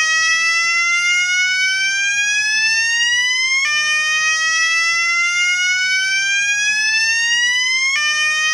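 Gentex GOS-24-15/75WR fire alarm horn sounding its slow whoop tone at high volume: a loud, buzzy rising sweep that climbs slowly, drops back and starts over, once about four seconds in and again near the end.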